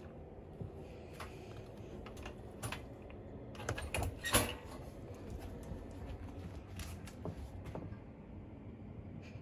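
Irregular clicks and rattles of a plastic pet crate's wire door being handled, loudest in a quick cluster about four seconds in.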